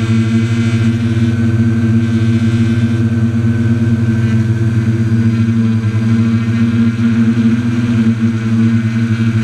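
Quadcopter's electric motors and propellers humming steadily as it hovers and turns, heard from a camera mounted on the craft.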